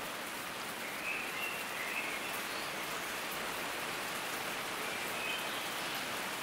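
Steady heavy rain falling, with a few faint high bird calls through it.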